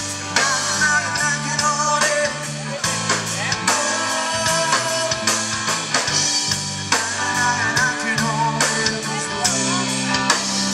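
Live band playing a rock song with drum kit, bass and guitar, and a singer's voice over a steady beat.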